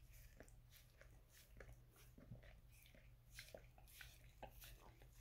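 Faint wet licking: a mixed-breed dog's tongue lapping at bare feet, a quick irregular run of small smacks and clicks over a low steady hum.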